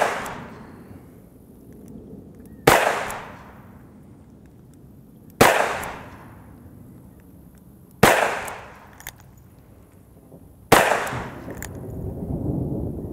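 EAA Windicator revolver firing .357 Magnum rounds in a slow, even string, about one shot every two and a half seconds. Each shot is a sharp crack that trails off in an echo.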